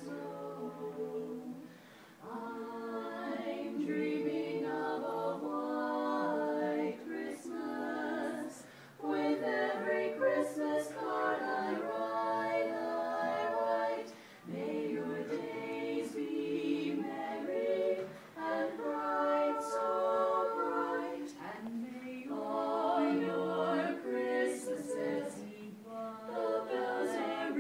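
Women's barbershop quartet singing a cappella in close four-part harmony, in sung phrases with short breaths between them.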